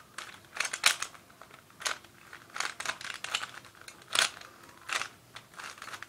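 Plastic Rubik's cube being twisted by hand during a solve: irregular clicks and clacks as its layers turn, about a dozen spread unevenly.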